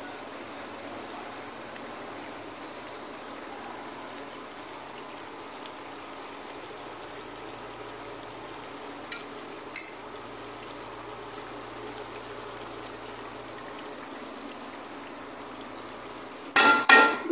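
Curry cooking in a metal pot with a faint steady hiss. A steel ladle clinks sharply against the pot twice about nine seconds in, then clatters loudly several times near the end.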